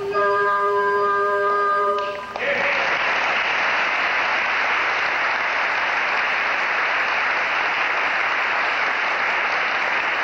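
A piece of music ends on a held chord of several notes, cut off about two seconds in. The audience then breaks into steady applause.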